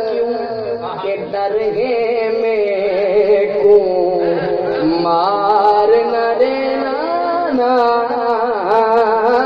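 A man singing Punjabi devotional verse unaccompanied, drawing out long held notes that slide and waver with ornaments.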